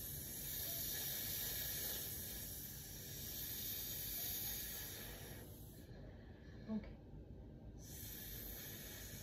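Steady hiss of room and recording noise, with no voice or singing. The hiss drops away for about two seconds about six seconds in.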